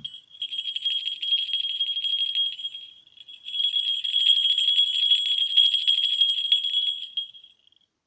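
A pair of 18 mm falconry bells shaken by hand, giving a steady high ring over rapid jingling. They sound in two bouts, with a short pause about three seconds in.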